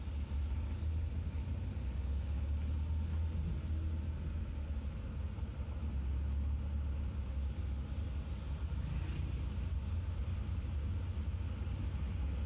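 Steady low engine and road rumble inside a vehicle crawling slowly uphill in heavy-truck traffic, with a brief hiss about nine seconds in.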